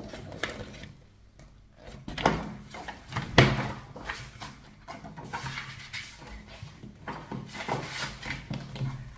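Paper and packaging being handled as a CD album box set is unboxed, with rustling and a few light knocks; the sharpest knock comes about three and a half seconds in. A steady low hum runs underneath.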